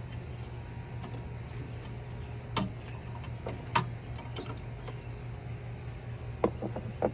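Scattered light clicks and taps from LED high-beam bulbs and their plastic fittings being handled and seated in a truck headlight housing: one about two and a half seconds in, another near four seconds, and a quick run of several near the end. A steady low hum runs underneath.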